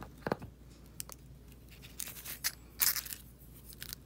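A few short scrapes and crinkles as a metal spoon and a nopal cactus pad are handled on brown paper, the loudest about three seconds in.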